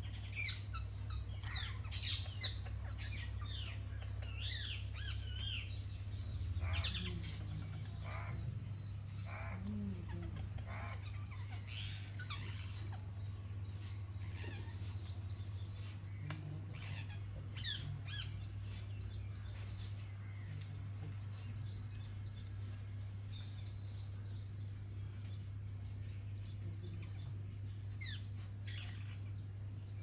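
Rose-ringed parakeets calling: many short, high calls, busiest in the first dozen seconds and sparser after, over a steady high buzz.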